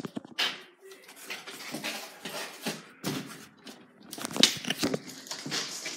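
Irregular rustling, scraping and bumping of a handheld phone's microphone rubbing against a cotton shirt while being handled, with a few sharper knocks, the loudest about four and a half seconds in.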